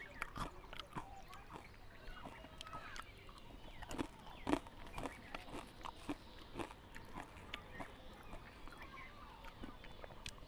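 Crisp fried puri and papdi crunching, a scattering of irregular sharp cracks, the loudest about four to five seconds in.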